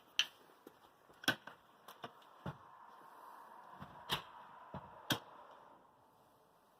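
About five sharp clicks and knocks of metal being handled, spaced a second or so apart: bolt cutters being brought to the padlocks of a steel strong box.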